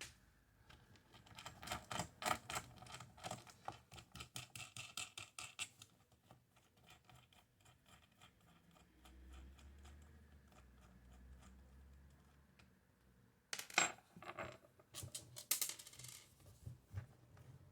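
Small metal hardware clicking and clinking: a quick run of light metallic clicks for several seconds, then after a pause a few sharp metal clinks, one with a brief ring. It is the bolt, nut and washers used to press the typewriter bottom plate's lock holes straight being handled and taken apart.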